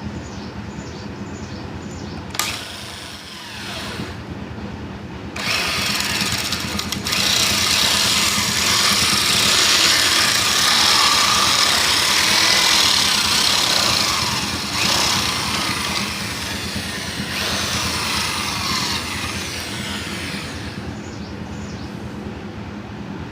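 Electric drill running steadily and spinning a wooden stick, with a loud rasping of wood being shaved or sanded round that starts about five seconds in and dies away near the end.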